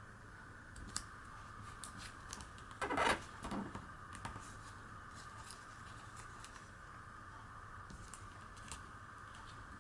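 A sheet of origami paper being handled and creased by fingers: soft rustles and light taps, with a louder crinkle about three seconds in and a smaller one just after, over a steady faint hum.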